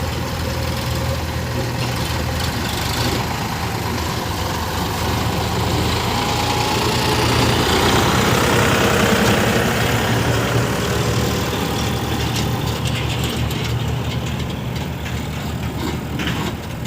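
Heavy diesel engine of the machinery running steadily, swelling louder from about six seconds in and settling back after about eleven seconds.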